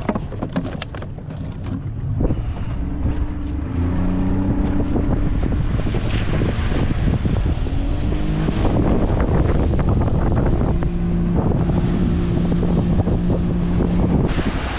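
A small fishing boat's engine running, its note getting louder about four seconds in and shifting pitch a couple of times, with wind buffeting the microphone. A few knocks sound in the first two seconds.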